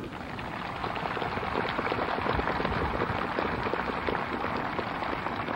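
Large crowd applauding, a dense patter of many hands that swells over the first couple of seconds and then holds steady.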